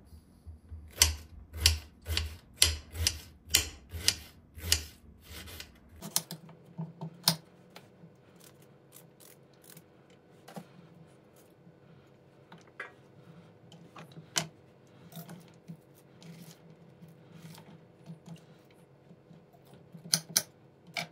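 Knife chopping vegetables on a cutting board: a quick, regular run of sharp chops, about two to three a second, for the first six seconds, then scattered lighter knocks and clicks.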